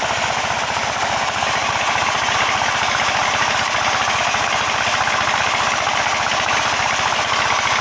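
A small stationary engine running steadily with a rapid, even firing beat, driving the water pump that feeds the hoses at a gold-mining pit.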